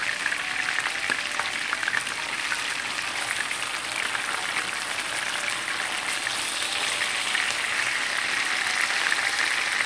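Raw chicken escalopes frying in hot oil in a nonstick frying pan: a steady sizzle with many small crackles and pops, at the start of cooking.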